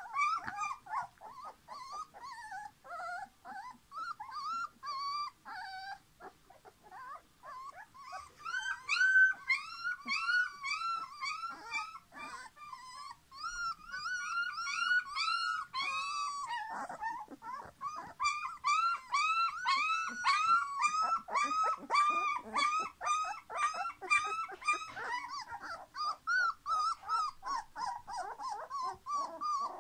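Young puppies whining and squealing in a near-continuous string of short, high-pitched cries, about two or three a second, with brief lulls.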